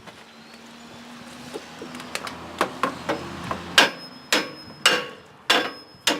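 A hammer striking the steel of a Meyer Lot Pro snow plow. Ringing metal blows come about two a second from a little before halfway, getting louder, as a rusted part is driven loose.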